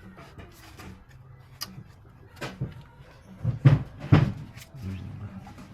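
Scattered clicks and knocks of hand work on a car, with two louder knocks a little past the middle, over a faint low hum.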